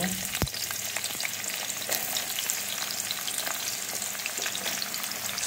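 Sliced onions frying in hot ghee, a steady crackling sizzle from onion freshly added to the fat.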